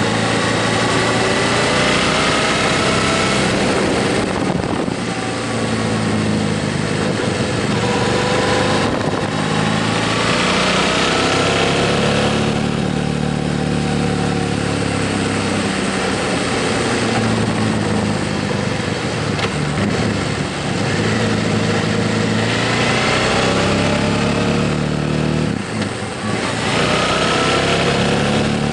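Motorcycle engine under way, its pitch climbing steadily and then dropping back briefly several times before climbing again.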